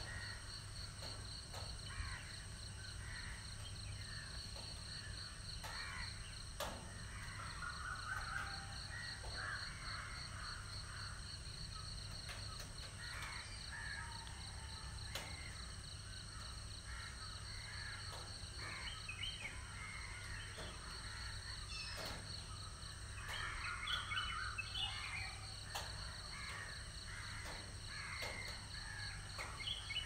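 Faint ambient background of birds calling on and off, over a steady insect-like trill and a low hum, with a few faint clicks.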